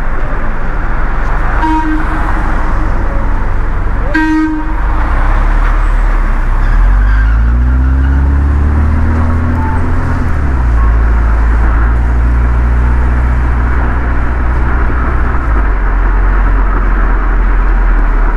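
Street traffic on a wet road. Two short horn toots sound a couple of seconds apart, then a vehicle engine pulls away, its pitch rising twice before it settles into a steady run, over a constant hiss of tyres.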